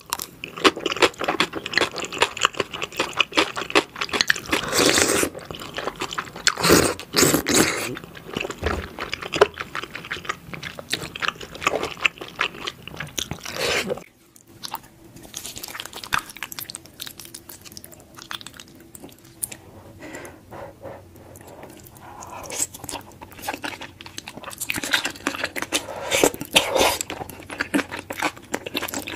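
Close-up eating sounds of spicy glass noodles: wet chewing, lip smacks and slurps, a dense run of clicks and squelches. The sounds drop off suddenly about halfway through and come back quieter, with a louder run of slurping and chewing near the end.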